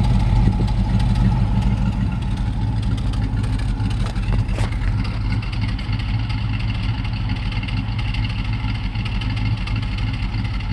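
GM LT1 V8 idling steadily at the exhaust, running with a misfire; black sooty exhaust from the driver's-side tailpipe points to a misfiring cylinder on that bank.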